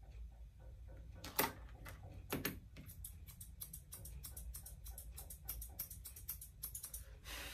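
Small grooming shears snipping through a Persian cat's long tail fur. A few separate snips come in the first three seconds, then a quick run of several snips a second.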